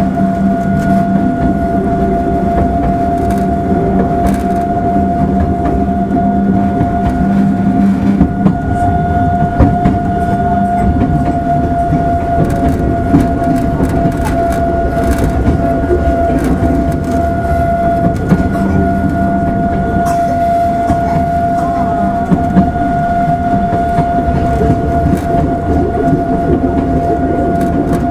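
Hakone Tozan Railway Moha 1 electric railcar, converted to cardan drive, running downhill, heard from inside the car: a steady rumble of wheels on rail with a continuous high whine and scattered clicks and knocks from the track.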